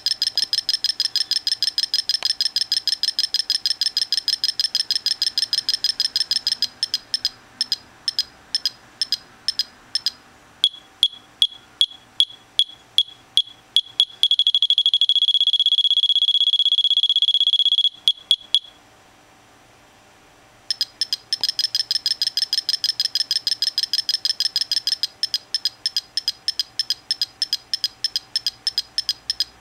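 Multiplex RC transmitter's telemetry alarm beeping, its pitch and rate changing with the measured speed against a set reference speed. It starts with fast high beeps that slow down, drops to lower beeps that merge into a steady tone for a few seconds, stops briefly, then resumes fast beeping that slows again.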